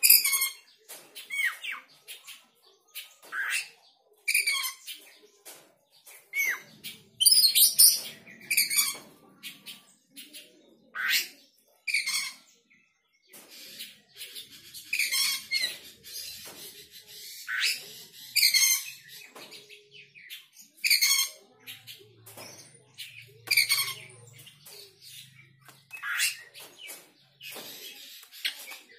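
Oriental magpie-robin singing: loud, short phrases of rapid, high whistled notes that rise and fall, repeated every second or two with brief pauses between them.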